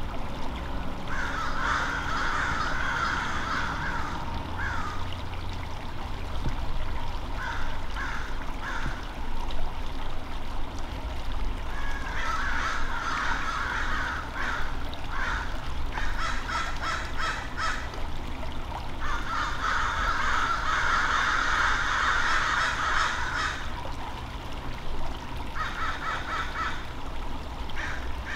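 Birds giving harsh, rapidly repeated calls in several bouts of a few seconds each, over a low steady rumble.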